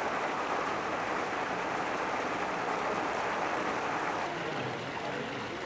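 Steady rush and splash of water jets pouring from hoses and wall outlets into standing floodwater, as flooded buildings are pumped out.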